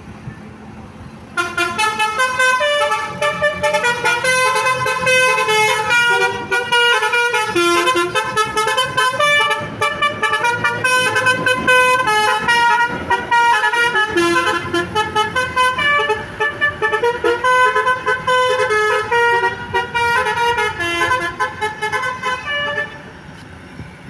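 Basuri V3 multi-tone telolet bus horn playing a quick tune of shifting notes. It starts about a second in and stops near the end, with a low rumble underneath.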